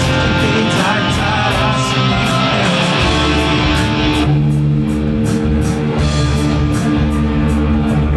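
Background music: an instrumental passage of a pop song, with guitar and bass over a steady drum beat.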